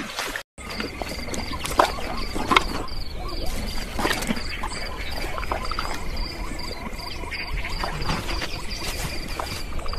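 Nature ambience of chirping insects, a high chirp repeating about three times a second over a low rumble, with a few soft knocks; it starts after a brief dropout about half a second in.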